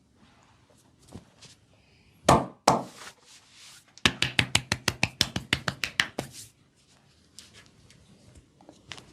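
Two sharp slaps, then a quick, even run of about sixteen hand strikes, roughly seven a second, lasting about two seconds: percussive massage, with hands chopping and slapping on the body.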